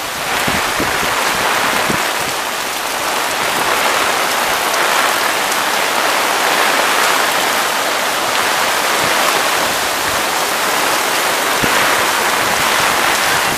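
Heavy downpour falling steadily, a loud even hiss of rain on the ground and roofs, with floodwater rushing along the street beneath it.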